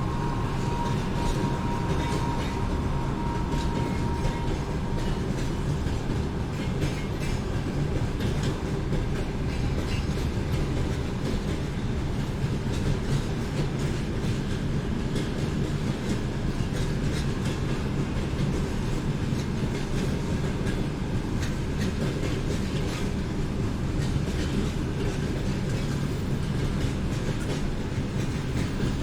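A train rolling past on the rails, a steady low rumble with the irregular clicks of wheels over rail joints. A faint high tone fades out in the first few seconds.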